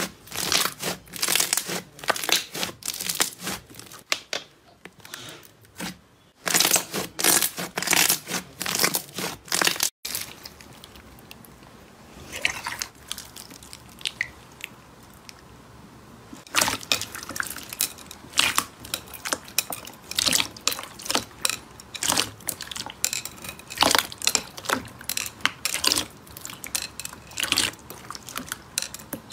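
Hands pressing and squeezing thick white slime, giving rapid trains of crackling clicks. After a cut, hands work clear slime packed with white foam beads: a few scattered clicks at first, then dense, steady crunching and crackling from about the middle on.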